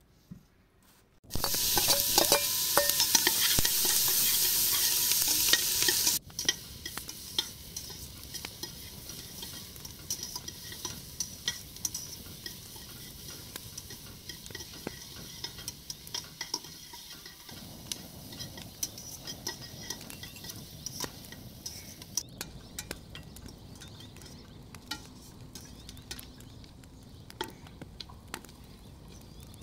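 Sheep's feet and onions frying in a steel pot, sizzling loudly for about five seconds, then sizzling more softly while a metal ladle stirs and clicks against the pot.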